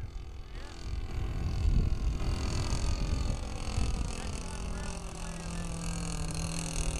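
Two-stroke gas engine (Evolution 33) of a Hangar 9 Super Cub RC plane running in flight overhead, its pitch sliding slowly down as it passes. Wind buffets the microphone underneath.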